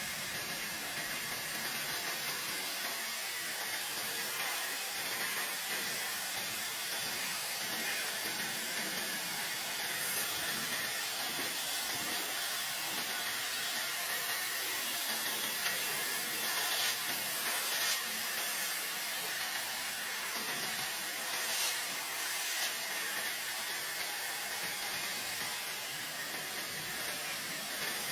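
Hair dryer running steadily: a constant airy hiss of blown air with a faint high whine from its motor.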